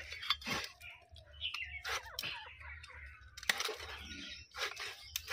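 Raw chicken being cut on a boti, a fixed curved blade: irregular sharp crunching cuts through skin and bone. Birds chirp in the background.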